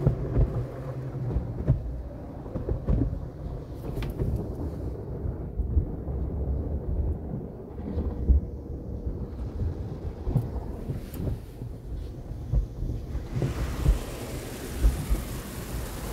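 Peco tunnel car wash heard from inside the car: the wash material rubs and slaps against the body, making an uneven low rumble with irregular thumps. About 13 seconds in, a steady hiss of spray hitting the car joins in.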